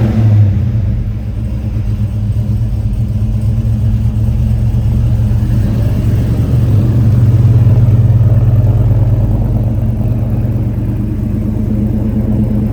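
LS3 V8 in a 1955 Chevy Nomad running at idle straight after a cold start, a steady deep exhaust rumble. It grows a little louder around the middle, then eases back.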